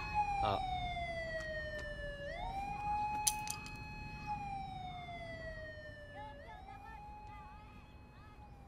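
Emergency vehicle siren wailing in the distance. Each cycle rises quickly, holds and slides slowly down, repeating about every four seconds, and it grows fainter toward the end. There is a sharp click about three seconds in.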